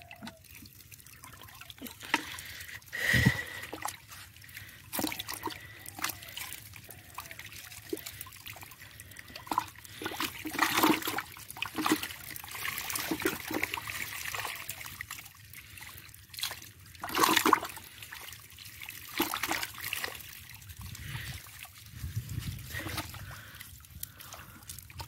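Water splashing and sloshing in a plastic bucket scooped full of pond water and holding live fish. The splashes are irregular, the loudest about three seconds in and again around seventeen seconds in.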